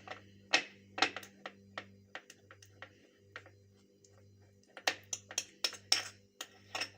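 Spoon clicking and tapping against a dish while garlic cloves and honey are stirred together. The sharp clicks come irregularly, in a busy run near the start and again over the last two seconds, sparser in between.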